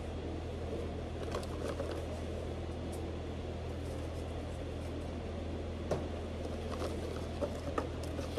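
Steady low hum in a workshop, with a few light clicks and knocks from tools and parts being handled.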